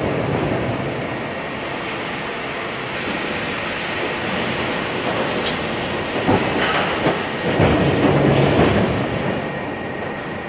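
Industrial machinery running with a steady mechanical rumble and clatter, with a few heavier knocks and surges between about six and nine seconds in.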